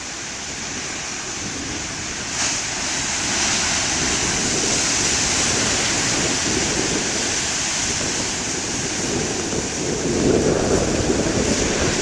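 Big ocean surf breaking and washing ashore, mixed with wind buffeting the microphone. The surge grows a few seconds in and swells loudest about ten seconds in.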